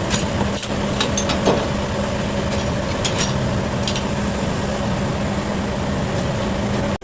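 A machine engine running steadily at idle, with a few light clicks and knocks over the first four seconds.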